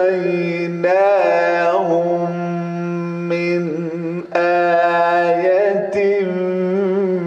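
A man reciting the Quran in melodic tajweed style, drawing out long held vowels with small ornaments in the pitch. He sings in long phrases, with short breaks about a second in and just after four seconds.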